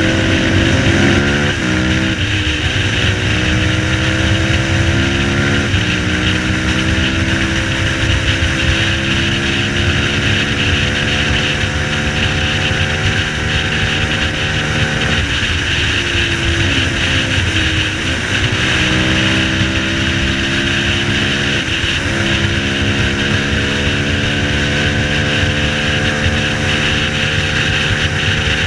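Dinli 450 quad's single-cylinder four-stroke engine under way on the road, its pitch dropping in steps as it shifts up about a second in and again near six seconds, falling as the throttle eases around the middle, then climbing and levelling off. A steady hiss runs beneath the engine.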